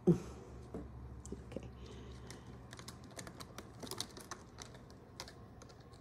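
A Persian kitten clambering behind a carpeted cat tree among electrical cords: light, scattered clicks and scratches of claws and knocked cords. A short falling vocal sound comes right at the start.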